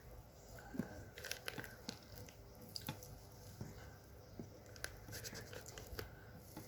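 Faint crinkling of a stiff plastic bag, with scattered soft clicks and scrapes, as thick mashed-potato batter is filled into it.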